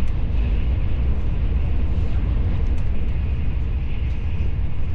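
Steady low rumble of a moving vehicle, without breaks or changes.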